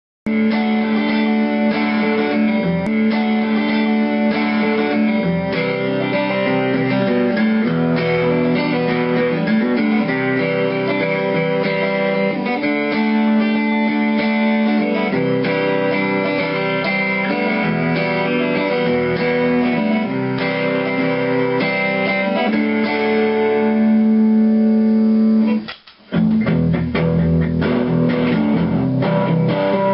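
Yamaha SG2000-style solid-body electric guitar played in a sound demo, a mix of held chords and picked notes that starts abruptly, with a brief drop-out a few seconds before the end.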